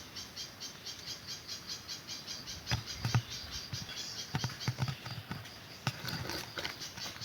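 An insect chirping steadily in a high, even pulse, about five chirps a second, with a few soft thumps in the middle.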